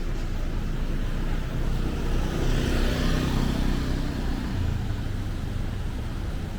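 A motor vehicle passes by on a city street: its engine and tyre noise swell to a peak about three seconds in and then fade into the steady hum of traffic.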